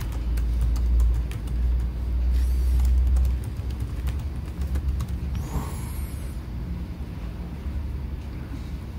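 A low rumble, loudest for the first three and a half seconds, with a few sharp laptop-keyboard clicks over it early on as the login is typed, and two brief whooshes.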